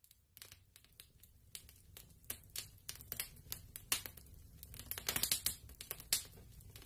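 Faint crackling from an intro sound effect of smouldering embers: scattered sharp clicks, sparse at first, growing denser from about halfway through, then thinning near the end.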